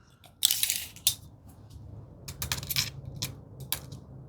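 Light handling noise of measuring tools at the drawer: a short scrape about half a second in, then a series of sharp little clicks.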